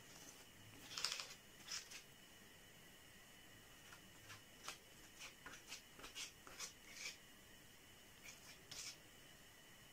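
Faint scrapes and dabs of a small spatula spreading filler putty through a stencil onto cardboard: the loudest about a second in, then a run of short scrapes from about four to seven seconds in.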